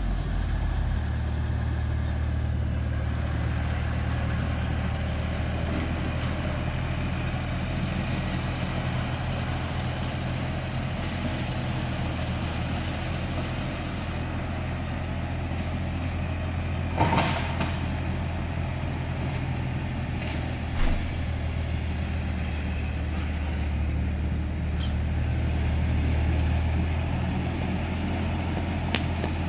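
Tractor's diesel engine and tow-behind rotary mower running, a steady low drone, with two brief knocks, one a little past halfway and another a few seconds later.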